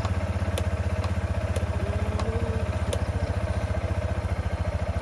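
SYM VF3i 185 scooter's single-cylinder four-stroke engine idling with a steady, even pulse.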